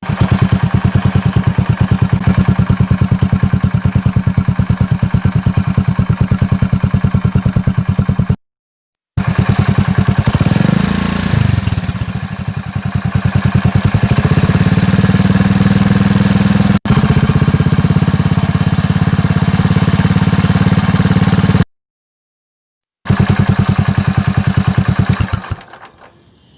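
Motorcycle engine running with a rapid, even firing beat, in several separate recordings cut apart by two short gaps of silence. About ten seconds in the engine is revved up and back down, and the last recording fades out near the end.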